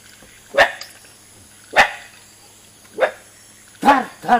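Dog barking: five short single barks about a second apart, the last two in quick succession.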